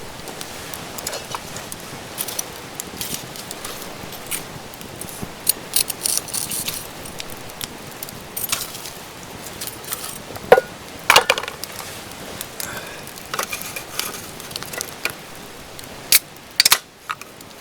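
Scattered clinks and knocks of small metal items being handled, with a few louder ringing clinks about two-thirds of the way through and near the end, over steady rain.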